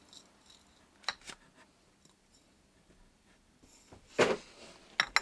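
Scattered light clicks and knocks of small objects being handled, with the loudest knock about four seconds in and a quick double click near the end.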